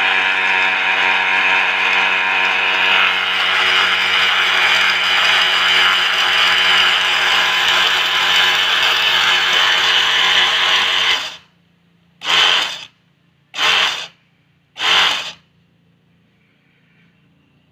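Rice combine harvester's machinery running with a steady mechanical rattle, cutting off suddenly about eleven seconds in, then three short bursts of the same noise as it is briefly run again.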